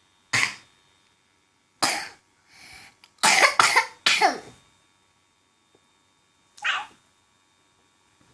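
A young child with a cough and cold coughing about six times in short bursts, most in the first five seconds and one more near the end.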